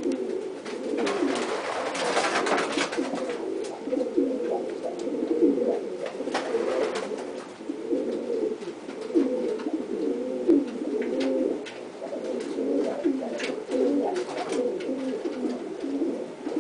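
Several racing pigeons cooing continuously, their low coos overlapping one another, with a brief rustle about two seconds in.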